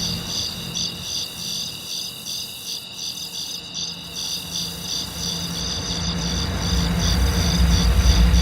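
Crickets chirping in rapid, evenly repeated pulses, the cartoon-style crickets sound effect. A low rumble underneath grows louder toward the end.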